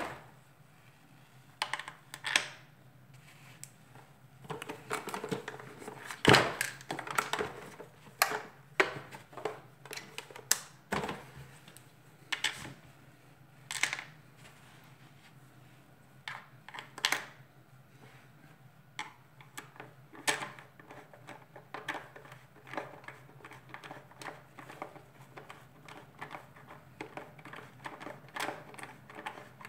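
Irregular clicks, taps and plastic knocks of a screwdriver with a ground-down Torx bit turning a screw inside a Dyson DC37 vacuum cleaner's plastic housing. The loudest knock comes about six seconds in, and a faint steady low hum runs underneath.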